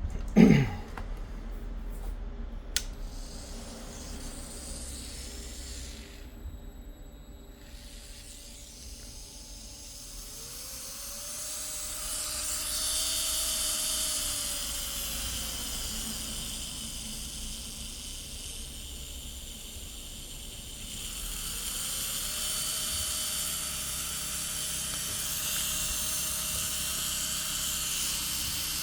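Small electric motor of a repaired electric nail drill, running again. It winds down sharply at the start, then about ten seconds in spins up to a steady whine with a hiss. It slows and stops a few seconds later, then spins up again a little after twenty seconds and keeps running.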